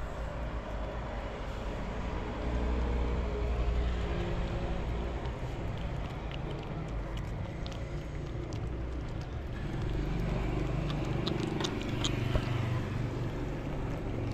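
A low rumble of road traffic that swells twice, with scattered small clicks of kittens and a cat chewing wet cat food from a plate.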